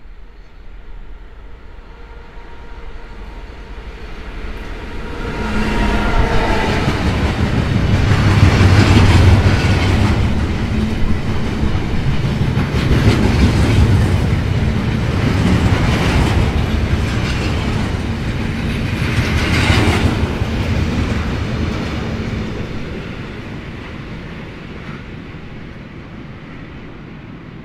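Diesel freight train passing. It builds up, runs loud for about fifteen seconds with the locomotive's steady hum and the wagons' wheels clattering over the rails, then fades away.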